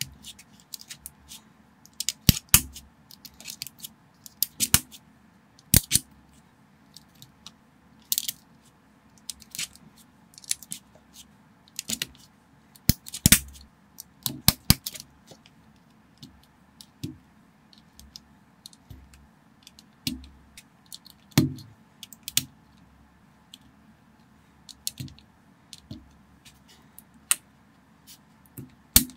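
Lego-style plastic bricks clicking and snapping as they are pressed onto a model and handled, in sharp, irregular clicks, sometimes in quick pairs, over a faint steady background hum.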